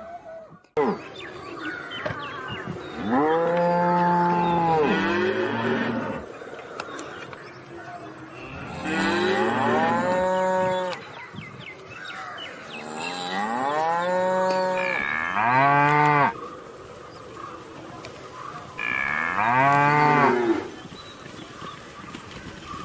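Cow mooing: four long moos, each rising and then falling in pitch, a few seconds apart.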